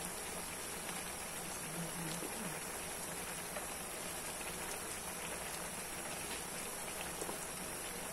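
Liquid simmering in a metal wok over a gas burner: a steady hiss of many small bubbles popping.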